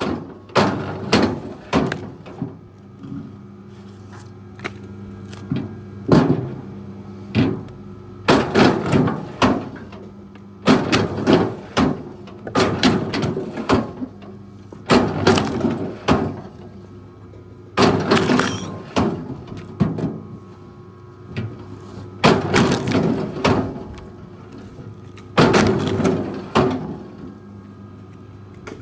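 A heavy machine's engine runs steadily while wood cracks and splinters loudly, in clusters of sharp snaps every few seconds.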